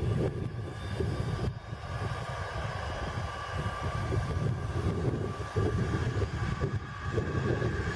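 Cessna Citation XLS+ business jet's Pratt & Whitney PW545C turbofan engines being started: a steady whine over a low rumble.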